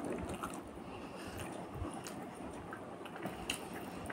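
Soft, wet chewing of a mouthful of rice and curry eaten by hand, with scattered small mouth clicks.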